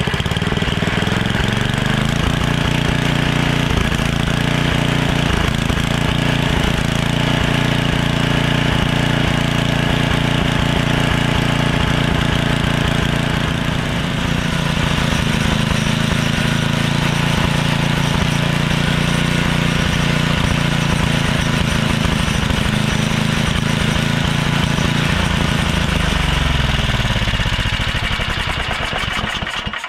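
Tecumseh 9 hp (318 cc) single-cylinder snowblower engine running smoothly at a steady idle while it warms up. Near the end its pitch falls as it winds down.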